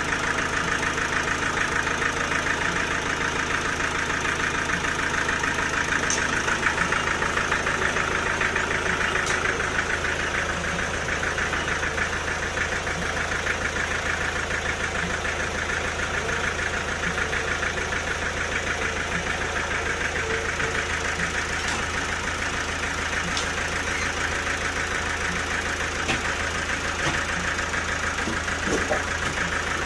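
Sawmill machinery running steadily: an even, engine-like drone with a fast rattling texture and a few faint ticks, with no change in load.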